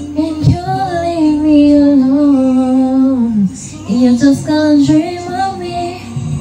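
A woman singing over a backing track, holding two long drawn-out phrases, the first one sinking slowly in pitch at its end.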